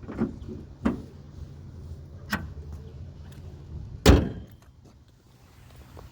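A few sharp knocks, then one loud heavy thump about four seconds in, over a low rumble that drops away after the thump.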